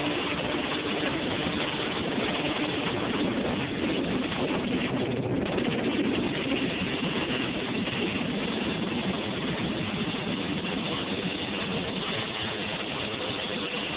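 Honda TRX250R quad's two-stroke single-cylinder engine running steadily while the quad rides along a road.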